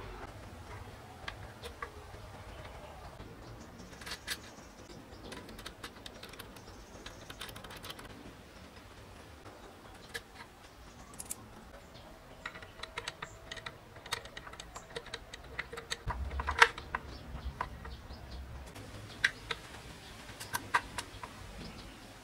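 Scattered light clicks and taps of small metal parts and a hex key being handled while a metal propeller is fitted onto a model boat's brass drive shaft. The clicks grow busier in the second half, with one sharper knock about two thirds of the way through.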